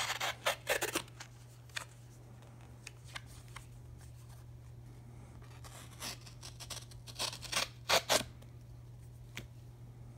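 Damascus steel folding-knife blade slicing through a paper card in short, quick strokes: a cluster of cuts right at the start, then a second run of cuts from about six to eight seconds in.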